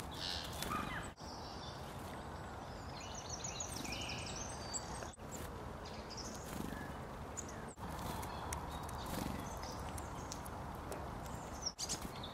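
Small wild songbirds chirping and calling in short high notes, including a quick run of repeated notes, over steady outdoor background noise. The sound drops out abruptly for an instant four times.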